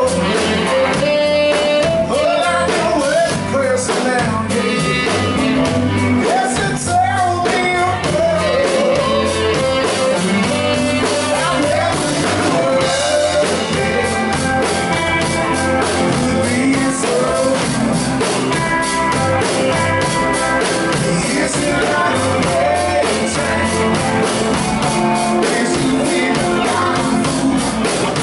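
Live blues-rock band playing: electric guitar and drum kit, with a man singing.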